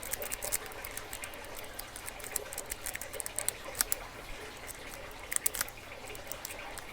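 Faint, irregular small metallic clicks and scratches of a lock pick and tension wrench working the pins in the keyway of a Master Lock padlock.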